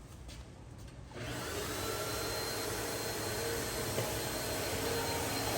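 Vacuum cleaner switched on about a second in, then running steadily.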